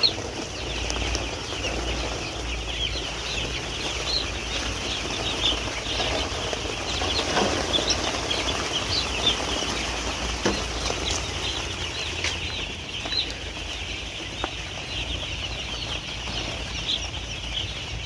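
A brooding flock of some three thousand two-day-old chicks peeping, a dense, unbroken chorus of short, high, overlapping chirps.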